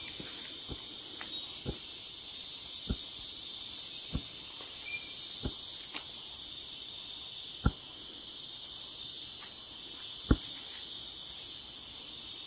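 Steady high-pitched chorus of night insects, with scattered sharp snaps and crackles from a freshly lit campfire.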